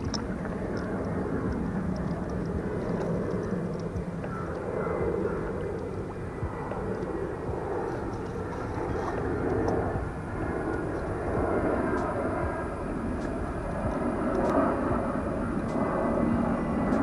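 A steady low rumbling drone that swells and eases slightly, with a few faint light ticks.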